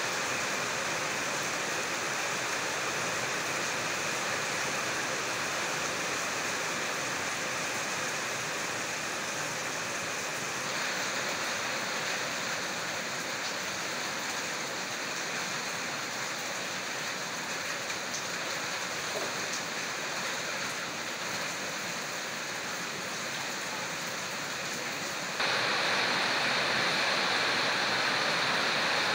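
Steady heavy rain falling on a corrugated metal roof and the ground around it, a dense even hiss with no separate drops standing out. It turns abruptly louder and brighter near the end.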